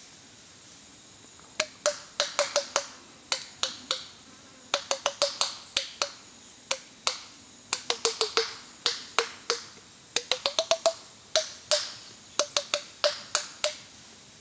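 White-lipped peccaries clacking their teeth, the herd's warning signal: loud, sharp clacks in irregular quick runs of several a second. They start about one and a half seconds in and stop shortly before the end.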